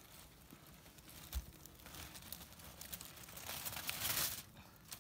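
Aluminium foil crinkling and rustling as the lid is lifted off a zarb sand-pit oven to uncover the food, swelling loudest a little before the end. A single knock comes about a second and a half in.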